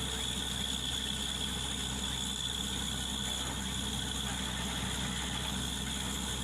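An engine running steadily at an even pace: a low hum with a faint high whine, no change in speed.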